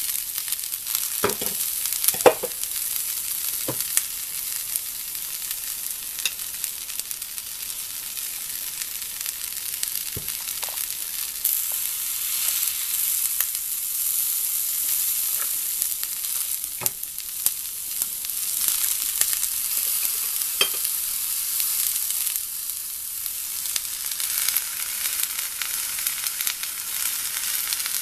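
Bean sprouts, cabbage and onion sizzling on a hot black iron griddle plate: a steady frying hiss, with a few sharp clicks and knocks scattered through it.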